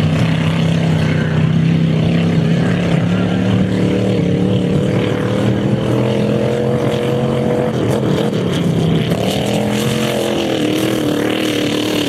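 Off-road race vehicle's engine running hard through a pass, its revs rising and falling. About eight seconds in the engine note breaks up briefly, then climbs again.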